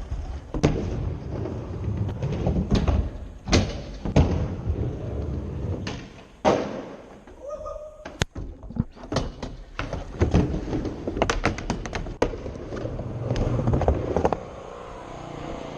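Skateboard wheels rumbling over ramps, broken by repeated sharp clacks and slaps of boards landing and hitting the surface, with a quick run of clacks about two thirds of the way through.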